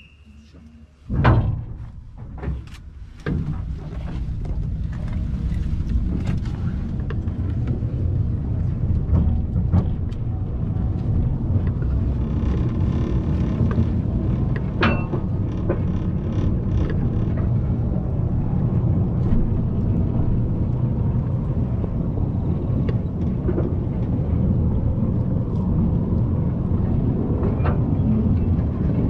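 Mine trolley train on narrow-gauge rails: a few sharp clanks as it gets going, then a steady low rumble and rattle of the cars running along the track.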